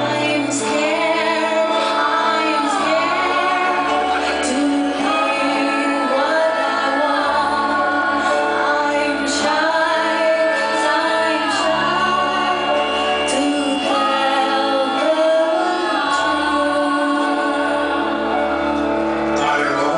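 Live band music with a woman singing the lead into a microphone, over slow held chords and a bass line that changes note every couple of seconds.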